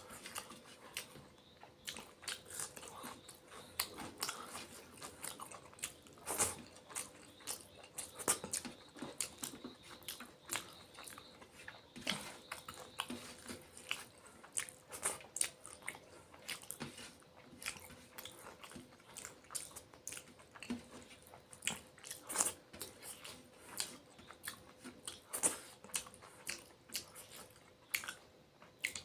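Close-miked chewing and wet mouth smacking while eating rice with fish curry: a quick, irregular run of sharp little clicks and smacks.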